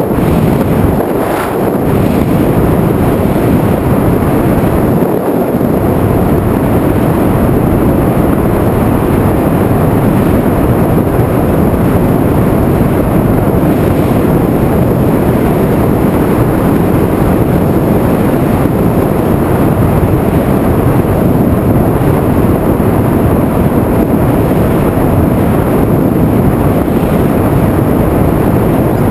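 Loud, steady rushing noise of an FPV drone in flight: air buffeting the onboard camera's microphone, with no clear motor tone standing out.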